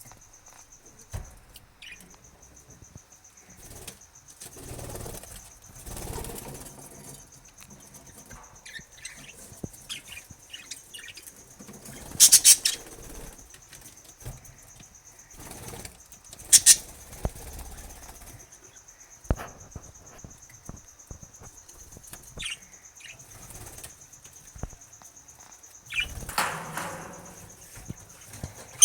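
Budgerigars flapping their wings in short bursts, the loudest about twelve and seventeen seconds in, with scattered short chirps. A steady high-pitched tone runs underneath.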